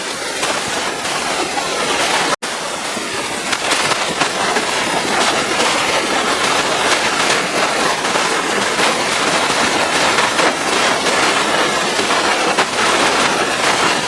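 High-pressure water spray from a pressure washer hitting a vehicle's body, a steady crackling hiss that breaks off for an instant about two and a half seconds in.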